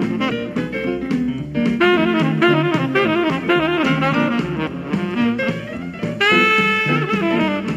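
Jazz music with a saxophone lead over a drum kit, ending on a long held note near the end.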